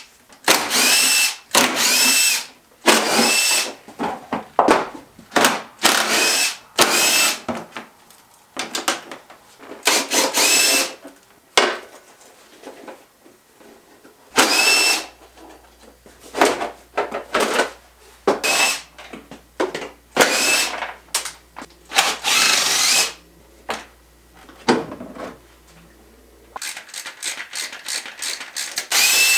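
Handheld power drill-driver running in many short bursts, each spinning up quickly, with pauses between: fasteners being driven out while a dirt bike is stripped down.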